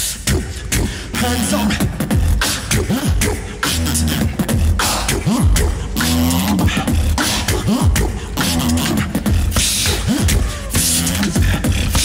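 Live competition beatboxing through a microphone and PA: a steady beat of deep kick drums and sharp snare and hi-hat clicks, with a repeating bass line that slides up and down.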